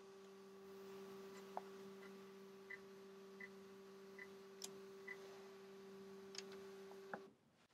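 GE MAC 1200 ST electrocardiograph's built-in thermal printer running as it feeds out the 12-lead ECG printout: a faint steady motor hum with soft regular ticks. The hum cuts off abruptly about seven seconds in, when the printout is finished.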